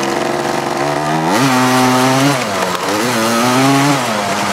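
Four-wheeler (ATV) engine revving up twice: each time the pitch climbs quickly, holds for about a second, then drops back to a lower running speed.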